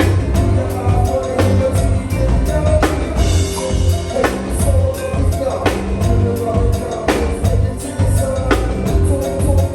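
Live band music: a drum kit keeping a steady beat with bass drum and snare, over heavy bass and held keyboard notes, with a strong hit about every one and a half seconds.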